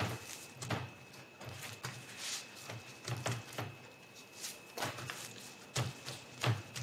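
Hands folding and pressing a paste-coated sheet flat on a bamboo cutting board: soft, irregular rustles and light pats, a few every second or so.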